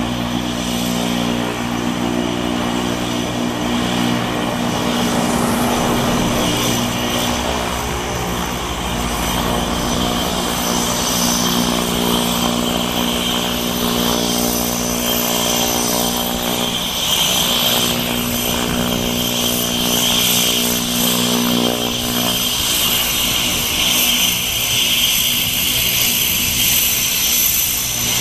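Cessna 208 Caravan's Pratt & Whitney PT6A turboprop running at taxi power: a steady high turbine whine over the propeller's even drone. The whine grows stronger in the second half as the plane taxis up close.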